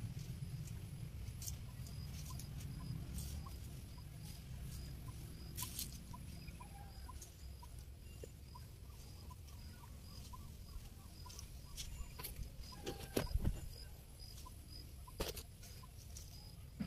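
Quiet outdoor ambience: faint, short, evenly repeated high chirps and a pulsing high-pitched buzz, with a low rumble that fades over the first few seconds and a few sharp clicks, the loudest about thirteen seconds in.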